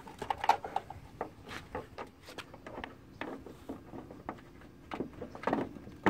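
Scattered small clicks and knocks as a turn-signal bulb socket is handled and pushed back into a car's headlight housing from behind.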